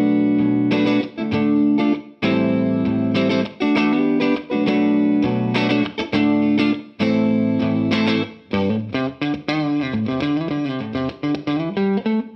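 Strat-style electric guitar played through a Mesa/Boogie TransAtlantic amp on channel 1 in normal mode, running at 5 watts of single-ended Class A power. A few chords are struck and held, with short breaks between them. From about eight and a half seconds in, it moves into a quicker single-note riff.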